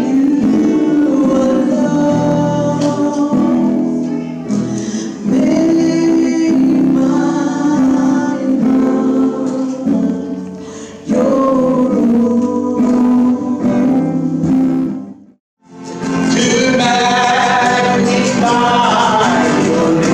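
Gospel song sung by women's and men's voices with acoustic guitar accompaniment. The sound cuts out for a moment about three quarters of the way through, then the singing and guitar resume.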